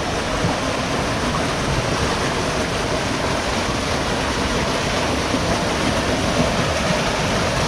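Fast-flowing creek water rushing steadily through a narrow slot canyon, a constant even roar of water.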